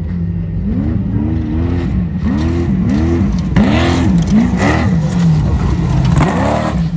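Off-road race truck engine revving up and down over and over, about twice a second, as the throttle is worked hard. It grows louder through the middle, with a rush of noise added.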